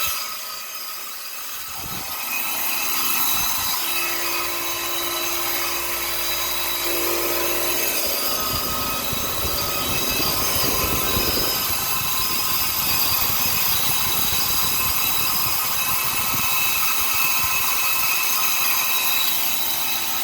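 Copeland compressor running with a loud mechanical noise over several steady high whining tones. The level dips briefly at the start and picks up again about two seconds in. This is the abnormal noise of a compressor that is also cutting off.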